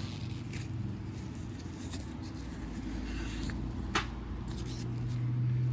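Steel wool scrubbing the inside of a small engine's carburetor float bowl, in short scratchy strokes, with one sharp metallic click about four seconds in over a steady low hum.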